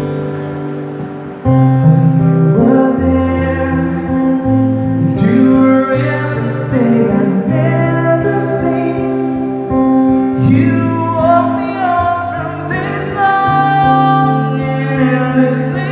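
Instrumental break in a song between sung lines: guitar over held bass notes that change every second or two.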